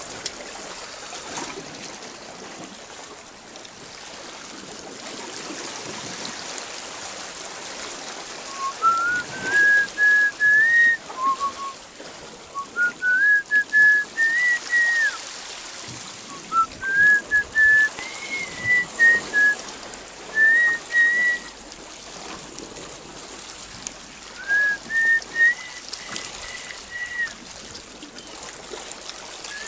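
A person whistling a tune in short phrases, each stepping up in pitch and then holding, about six phrases in all starting a third of the way in. Underneath runs a steady wash of seawater lapping among shoreline rocks.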